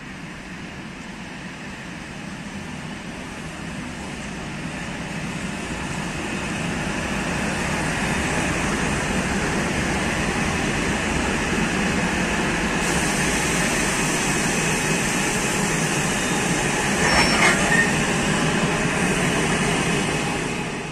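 ChS7 electric locomotive hauling a passenger train rolling in past the platform: a steady rumble of wheels and running gear that swells over the first several seconds as it draws alongside, then holds as the locomotive and carriages pass close. A brief high squeal rises out of it about three-quarters of the way through.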